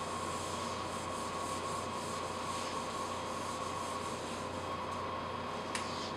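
Whiteboard eraser rubbing across the board in quick repeated strokes, wiping off marker writing, over a steady hum.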